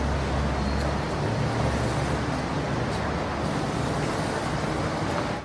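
Light city traffic ambience: a steady low rumble of road traffic with faint small ticks over it. It cuts off abruptly near the end.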